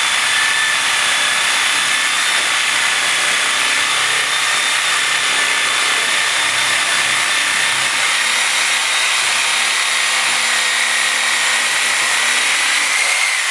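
DeWalt DW303M reciprocating saw with a Milwaukee Sawzall blade running steadily while cutting through a frozen turkey: a continuous motor whine over the blade's rasp.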